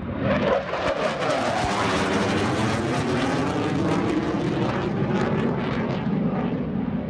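Fighter jet flying past overhead, its loud jet noise swelling about half a second in and staying loud, with a whooshing tone that sweeps down and back up as it passes.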